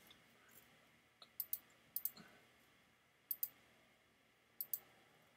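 Four faint computer mouse clicks, each a quick double tick of press and release, spread about a second apart.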